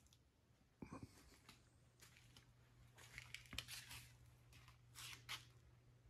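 Near silence: quiet workshop room tone with a faint steady low hum and a few soft scuffs and clicks scattered through it.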